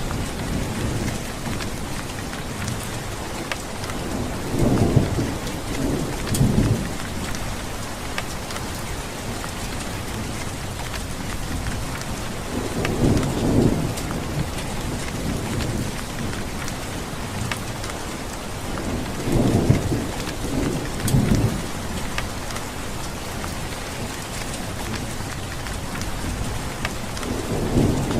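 Steady heavy rain falling, with low rumbles of thunder that swell and fade several times, a few seconds apart.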